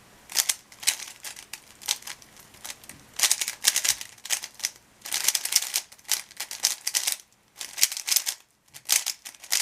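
A speedcube's plastic layers being turned rapidly by hand during a timed solve: quick runs of clicking, clacking turns, with brief pauses of about half a second twice near the end.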